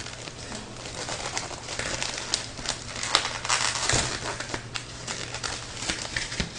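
Plastic wrap crinkling and rustling as it is peeled off a large takeout food platter and its plastic cover, with many short crackles and taps.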